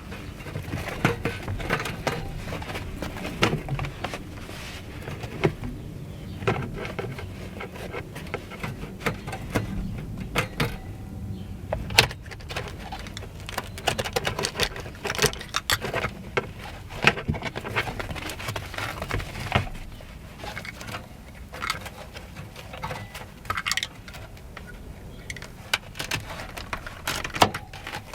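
Carpet being trimmed to fit with a freshly changed knife blade and shifted about by hand: irregular scrapes, rustles and clicks over a steady low hum.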